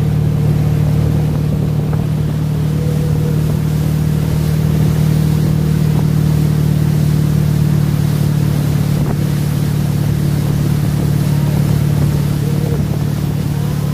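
Motorboat engine running steadily under way while towing a water skier: a loud, even, low drone with no change in speed.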